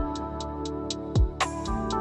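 Background music with a steady beat: a deep falling bass thump about every second and a quarter, quick ticks between, over held chords.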